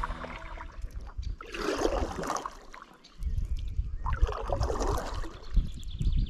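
Water sloshing and lapping against the side of an inflatable kayak in two bursts, about one and a half and four seconds in, over a low wind rumble on the microphone.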